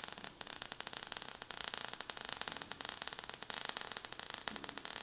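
Faint crackling static: a steady hiss thick with small irregular clicks.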